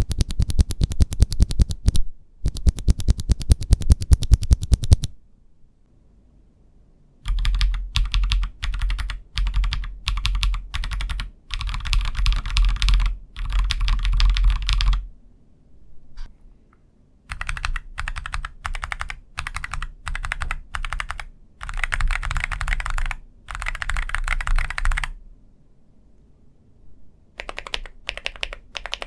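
Mechanical keyboard fitted with Akko V3 Lavender Purple Pro tactile switches being typed on. It opens with two runs of fast, evenly spaced keystrokes, then goes on in bursts of typing broken by short pauses.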